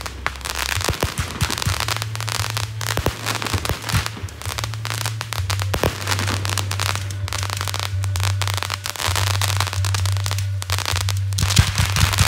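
Fireworks going off continuously: dense crackling and popping with many sharp bangs, over a steady low hum.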